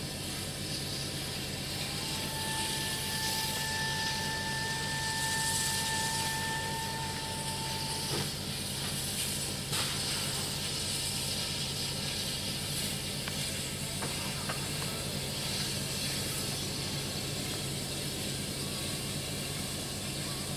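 A locomotive standing still, giving off a steady hiss over a low, even hum. A thin high whine sounds from about two seconds in and stops about six seconds later.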